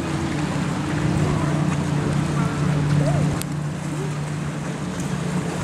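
Steady low hum of a boat engine out on the water, with wind and waves.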